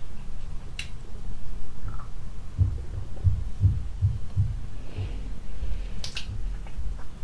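Muffled mouth sounds as a bulb-shaped hard lollipop is forced into the mouth and worked back out: about six low, dull pulses in quick succession near the middle, with a couple of short sharp clicks of candy against teeth.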